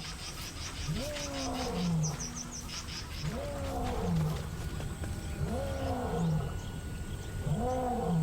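A male lion roaring: a series of deep grunting calls about two seconds apart, each rising then falling in pitch. It is a pride male roaring to proclaim his territory.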